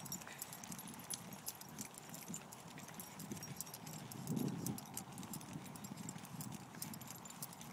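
Footsteps on a dirt trail, an uneven run of soft low thuds with the rustle of a hand-held phone jostled at each step, and one louder thump about four and a half seconds in.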